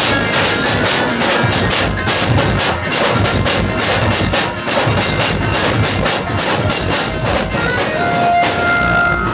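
A procession band playing loud live music: fast, steady drumming with a melody line over it, and a held note near the end.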